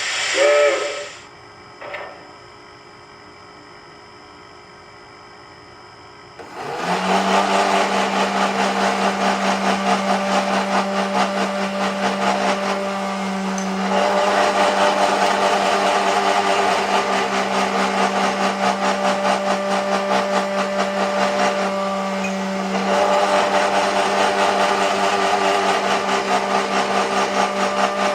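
A short whistle blast sounds right at the start. About six and a half seconds in, a small electric motor starts and runs steadily, with a constant hum and a quick regular pulsing: the S gauge layout's sawmill accessory at work.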